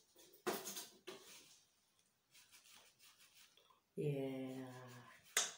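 A woman hums one steady note with her mouth closed for just over a second. Brief sharp noises come about half a second in and again near the end.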